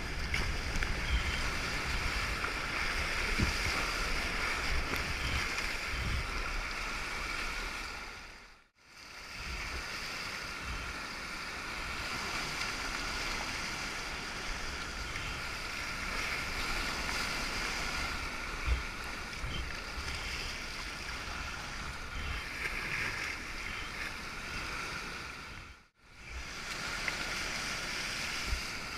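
Rushing, churning whitewater of a tidal standing wave breaking around a sea kayak as it surfs the wave, heard close to the water. The sound drops out briefly twice.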